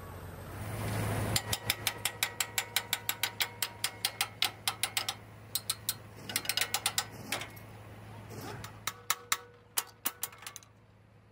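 Rapid, evenly spaced metal-on-metal taps, about five a second, in several runs with short pauses; each tap rings briefly. A low hum runs underneath.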